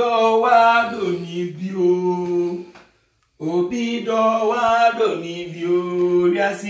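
A man singing long held, chant-like notes in two phrases, breaking off for about half a second around three seconds in.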